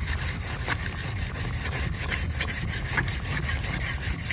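Whetstone rubbed back and forth along the steel blade of a long coconut-cleaning knife (mác), a gritty scrape stroke after stroke, honing its dulled edge sharp again.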